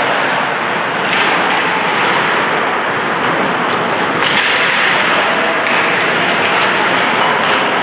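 Ice hockey game play in a rink: a steady wash of rink noise with skates on the ice, broken by three sharp cracks about three seconds apart.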